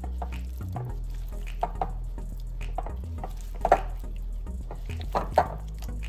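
Gloved hand mixing tofu cubes into thick masala paste in a glass bowl: short wet squishes and soft knocks come in a few quick pairs, the loudest a little past the middle.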